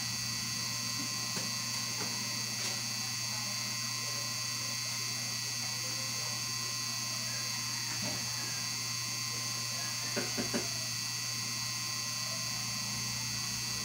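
Steady low electrical hum with a constant high whine over it, broken by a few faint clicks and three quick taps about ten seconds in.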